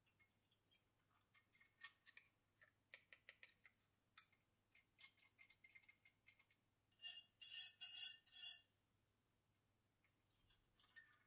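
Faint clicks and light scraping from hands handling a Noctua NH-U12A tower heatsink, fingers brushing over its thin metal fins and plastic base cover. A denser run of scraping with a slight metallic ring comes about seven to eight and a half seconds in.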